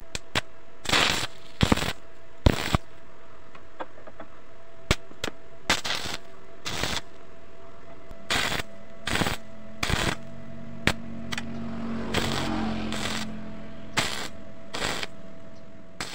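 Stick (arc) welding on steel sprockets: the electrode arc crackles in a series of short tack-weld bursts, about a dozen, with one longer run of crackle about twelve seconds in. A steady hum sounds underneath.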